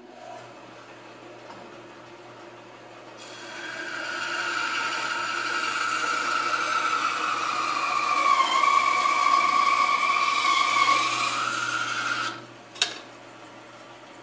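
A 14-inch cast iron bandsaw runs with a steady hum, then resaws a wide board on edge from about three seconds in. The blade cuts with a loud whine that sags in pitch midway through the cut and recovers before it stops about twelve seconds in. A single sharp knock follows just after the cut, then the saw keeps running free.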